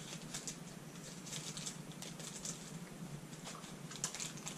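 Faint, irregular crinkling and rustling of small candy wrappers being opened and handled.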